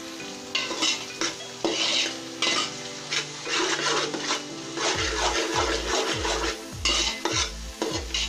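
A spoon scraping and knocking against an aluminium pot in repeated strokes as onions, capsicum and cabbage are stirred while they fry, with a light sizzle. Background music with a low, thudding beat comes in about five seconds in.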